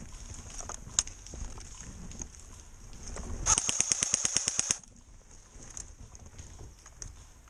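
Airsoft rifle firing one rapid full-auto burst of about a second and a quarter, roughly ten shots a second, about three and a half seconds in. Before it, low rustling and handling noise.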